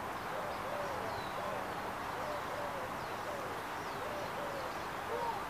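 Birds calling in the background with short, low, hooting notes that rise and fall, repeated about twice a second over a steady outdoor hiss, with a few faint high chirps.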